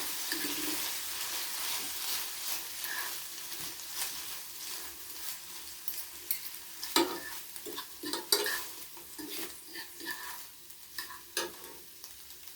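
Sauce of garlic, sweet chili sauce, peanut butter and soy sauce sizzling in a pan while being stirred, with scattered clicks and scrapes of the utensil against the pan. The sizzle slowly fades.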